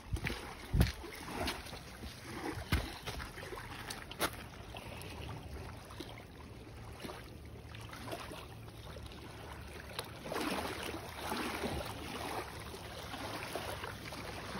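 A few footsteps knocking on granite rock steps in the first four seconds, then an even wash of choppy lake water and wind, which swells for a couple of seconds near the end.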